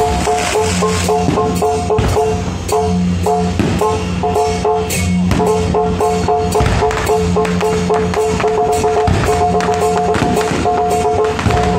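Aerial fireworks crackling and popping in many sharp cracks, over loud music with drums and a repeating two-note tone.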